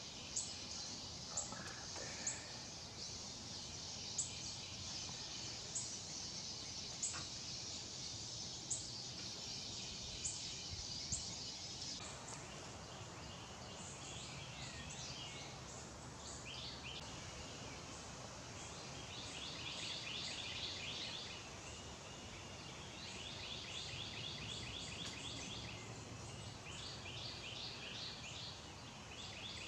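Woodland birdsong over a steady high hiss. A short, high chirp repeats about every second and a half, then partway through gives way to bursts of quick, rapid-fire chirping notes that come every few seconds.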